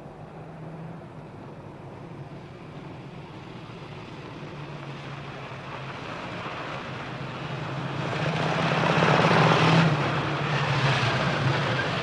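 Police motorcycles and a limousine driving up on a gravel drive: a steady engine hum that grows louder as they approach, loudest about nine to ten seconds in, then eases slightly.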